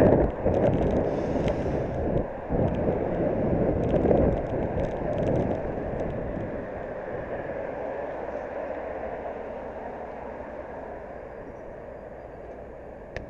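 Wind rushing over a bicycle-mounted camera's microphone, mixed with road and traffic noise while the bike is ridden, fading steadily over the second half as the bike slows to a stop.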